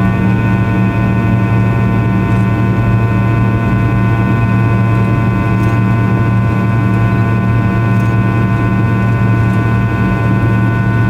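Fokker 100 cabin noise in flight, heard beside its rear-mounted Rolls-Royce Tay turbofan: a steady, loud deep hum with a cluster of steady whining tones above it.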